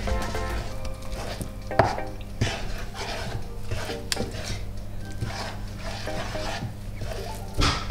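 Wooden spatula stirring and working thick fufu dough in a saucepan: repeated scraping and soft knocks against the pan, with a few sharper knocks, the loudest near the end.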